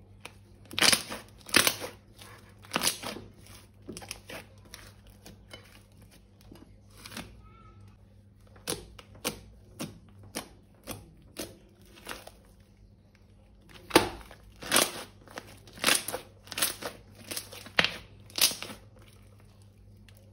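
Crunchy slime being squeezed and worked by hand, giving crisp crackling pops. The pops come in two runs, one just after the start and a denser one near the end, with sparser crackles between.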